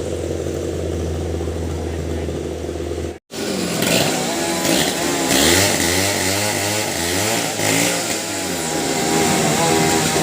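An engine running steadily at idle, then, after a brief cut a third of the way in, a STIHL two-stroke chainsaw revved up and down again and again, its pitch rising and falling with the throttle.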